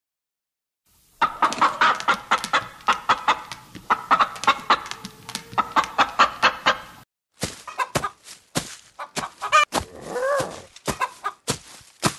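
Chicken clucking: silent for about a second, then quick runs of short clucks. After a brief break about halfway, the clucks come sparser, with one longer squawk that rises and falls in pitch.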